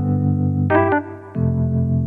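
Background music: sustained chords over a steady bass, with struck notes and a short dip about a second in before a new chord comes in.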